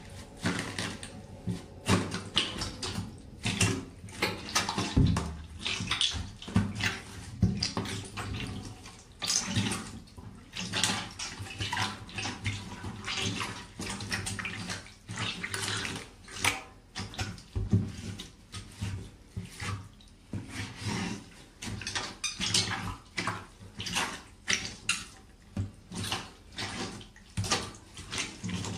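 Rubber boots stomping on mashed food in a shallow pool of liquid: repeated wet squelches and splashes, coming irregularly about one or two a second.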